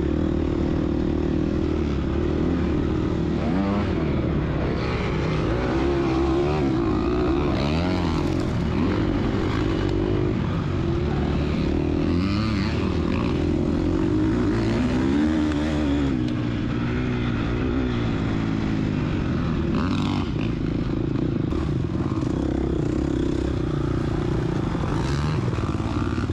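A Gas Gas EX250F dirt bike's single-cylinder four-stroke engine revving up and down again and again as it is ridden along a rough trail. There is a sharp knock about twenty seconds in.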